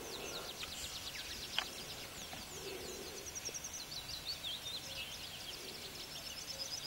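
Quiet spring birdsong: several small songbirds singing at once, with high quick trills and fast runs of chirping notes. There is a single short click about one and a half seconds in.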